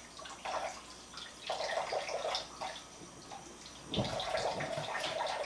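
Water running and splashing into a sink or basin in uneven spells, with pauses between them.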